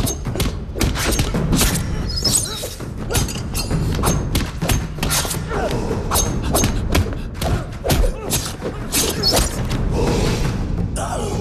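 Film fight-scene sound effects: a fast, irregular string of punches, blocks and body thuds laid over a dramatic music score.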